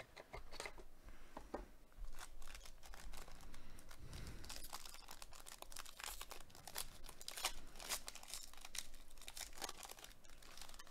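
Foil wrapper of a 2021 Donruss Optic Choice trading card pack being torn open and crinkled by hand: a quiet run of small crackles that gets denser about four seconds in.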